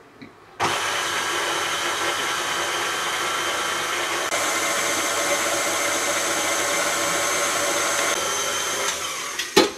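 KitchenAid Classic tilt-head stand mixer running steadily, its dough hook turning through flour, egg and milk in the first mixing stage of a yeast dough. It starts about half a second in and cuts off near the end.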